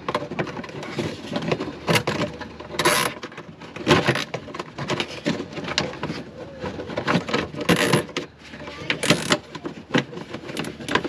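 Hands working a corrugated plastic diesel-heater hose against a vehicle's underbody: a run of scrapes, clicks and rustles, with three short rasping zips, a cable tie being pulled tight to hold the hose.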